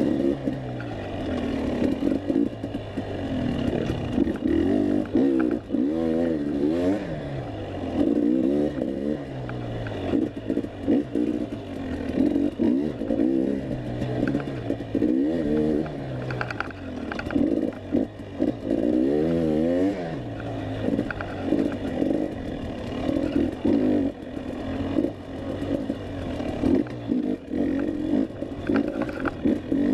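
Dirt bike engine under hard riding, revving up and falling back every second or two as the throttle is worked, with occasional knocks from the bike over rough ground.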